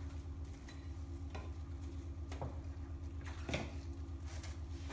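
Plastic cling wrap being pulled off its roll and stretched over an ice cream mold: a handful of brief, scattered crinkles and rustles over a steady low hum.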